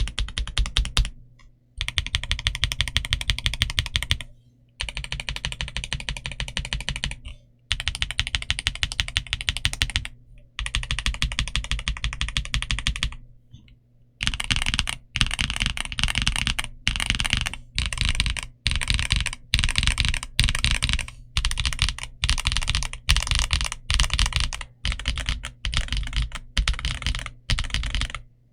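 Typing on a Redragon K709 65% mechanical keyboard: rapid key clacks in runs of a few seconds broken by short pauses, then a longer unbroken run of typing from about halfway through.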